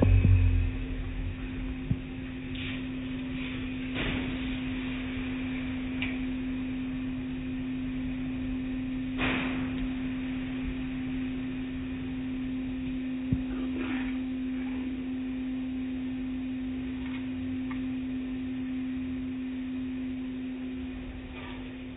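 Automatic car wash heard from inside the car: a steady machine hum, with a few soft thuds and swishes as the rotating brushes strike the car.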